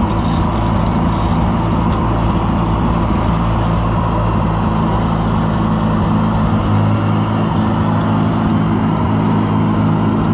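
Farm tractor engine running steadily at a constant speed while the tractor is driven along with equipment hitched behind.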